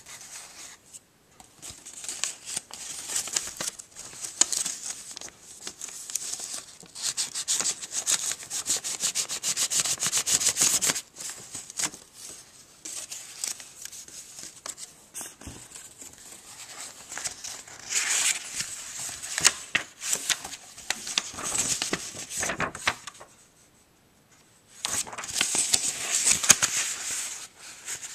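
Origami paper rustling and crinkling as hands fold and crease it, in several spells of dense crackly rustling with quieter gaps between.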